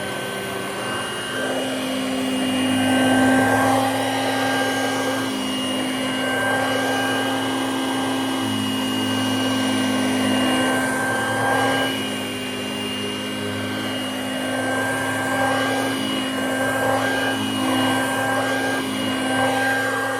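Dirt Devil two-speed handheld vacuum cleaner running on its high setting with a steady motor whine and rushing air. The pitch dips and recovers several times as the nozzle is worked over carpet.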